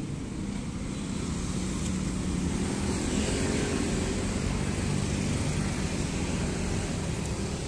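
Heavy traffic of many motor scooters and motorcycles, with a few cars, moving off together: a steady mix of small engines and tyre noise that grows louder from about two seconds in.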